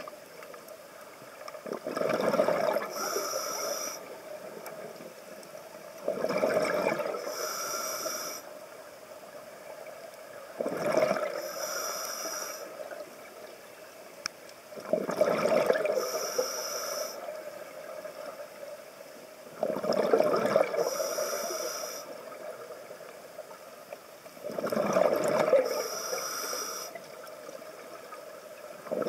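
Scuba diver breathing through a regulator underwater: six breaths, about one every four and a half seconds, each a hissing draw followed by a gush of exhaled bubbles.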